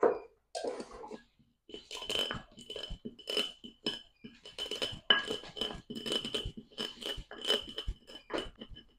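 Pestle grinding and knocking in a mortar, crushing peppercorns and garlic into a spice paste: irregular clinks and scrapes, many of them with a slight ring.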